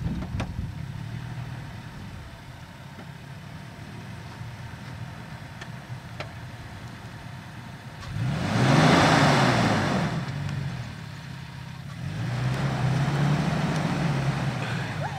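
2020 Toyota Tacoma TRD Off-Road pickup's engine running under load as the truck drives out of soft sand. It revs up hard about eight seconds in, with the pitch rising and falling, then surges again a few seconds later.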